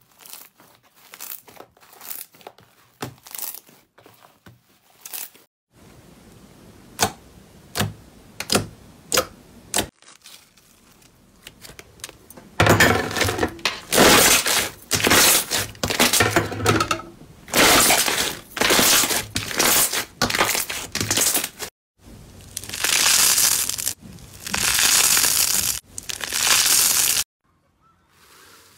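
Hands squeezing and pressing slime, giving sticky clicks and pops. About a third of the way in it turns to much louder crackling bursts, about one a second, as a glossy clear slime is pressed flat and its trapped air pops.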